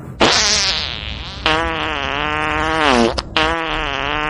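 Cartoon fart sound effect: three long, loud fart noises in a row, each a steady pitched tone that drops in pitch as it ends.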